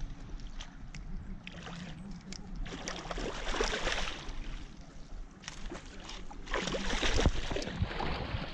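A hooked salmon thrashing in a landing net at the water's surface, splashing hard in two bouts: about three seconds in and again near the end.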